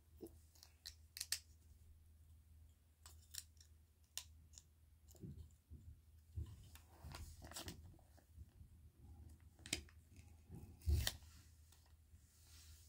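Small plastic LEGO bricks clicking and clattering as they are picked up and handled: irregular sharp clicks with a few soft thumps, the loudest about two seconds before the end.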